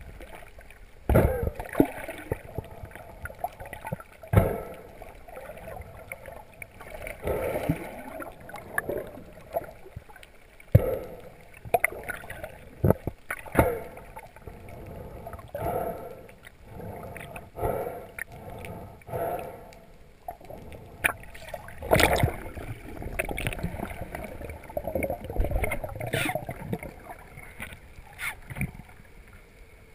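Underwater sound as picked up by a camera in its housing: water gurgling and rushing past as the spearfisher swims down, broken by irregular sharp knocks and clicks.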